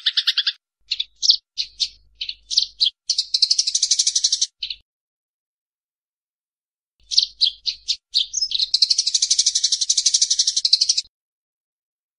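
Eurasian tree sparrows giving agitated fighting calls: separate sharp chirps that build into a fast rattling chatter, twice, with a pause of about two seconds between.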